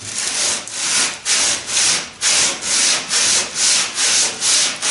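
Hand-sanding the edge of a wooden boat plank with a sanding block: quick, even back-and-forth strokes, a little over two a second, a rasping hiss on each stroke.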